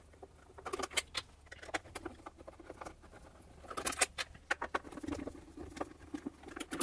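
T20 Torx screwdriver backing screws out of a sewing machine's sheet-metal base plate: light, irregular clicks and scrapes of the bit in the screw heads, and small steel screws clinking as they are handled.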